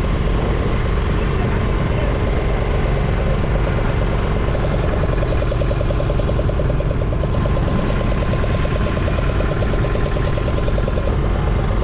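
A motor on a fishing boat running steadily, a deep constant drone with a faint steady hum above it.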